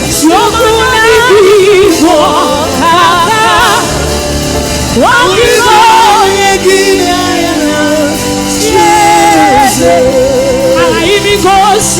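Live gospel worship music: a woman's voice sings long, wavering vibrato lines over a band's sustained chords.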